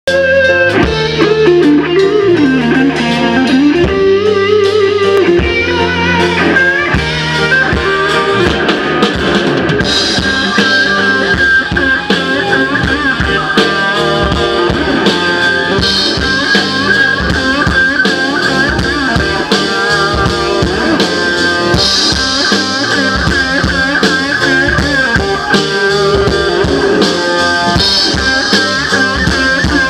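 Live rock band playing: a drum kit keeping a steady beat under guitar, with cymbal crashes recurring about every six seconds.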